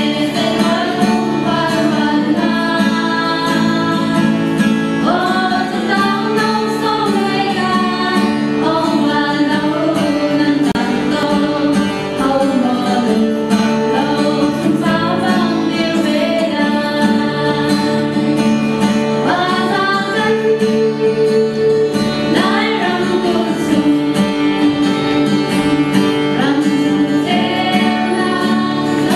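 A song sung by a small group of women's voices over guitar accompaniment, the melody gliding and held in long phrases.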